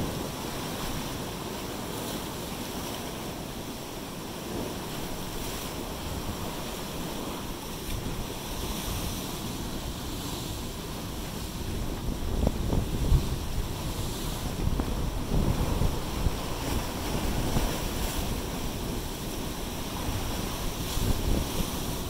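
Pacific surf washing over and around black volcanic shoreline rocks: a steady rush of foaming water. From about twelve seconds in, wind buffets the microphone in louder, uneven low gusts.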